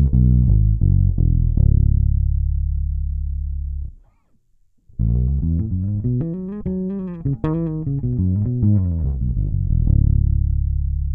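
Six-string electric bass guitar playing a quick melodic run of notes that settles on a long held low note; after a short break about four seconds in, a second run is played and again ends on a held low note.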